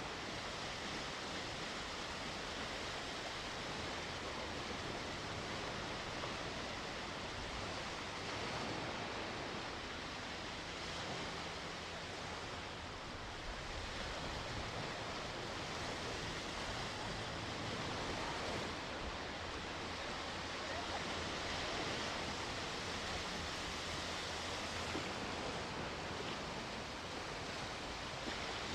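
Sea waves washing onto the shore, a continuous surf noise that swells and eases gently.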